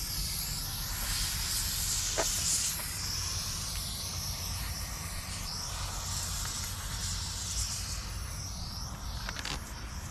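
A steady hiss of air being blown across a laptop keyboard to clear out dust.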